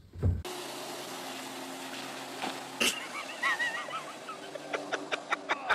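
Speedboat engine running steadily on open water, with a sharp crack about three seconds in, warbling high calls soon after, and a run of sharp knocks near the end. It opens with a single loud thump.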